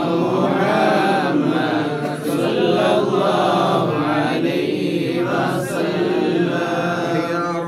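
Group of men chanting Arabic mawlid verses in unison, unaccompanied: a devotional chant in praise of the Prophet Muhammad, held without a break.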